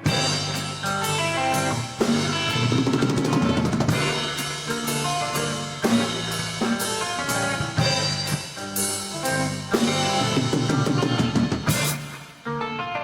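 A rock band playing an instrumental passage live: drum kit with snare, bass drum and fills over bass and electric guitar, building to a last strong hit near the end as the song winds down.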